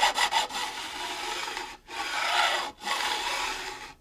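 Hand file dressing the cut-off fret ends along the edge of a guitar fingerboard, still cutting metal at the end where the frets stick out. Quick short strokes at first, then three longer, slower strokes.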